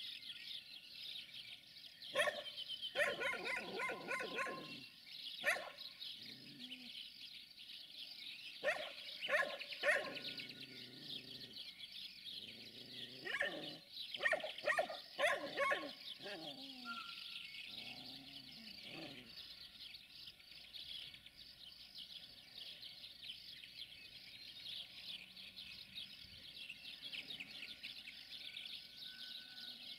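A dog barking in several bouts, about two, nine and thirteen seconds in, over steady birdsong and insect chirping.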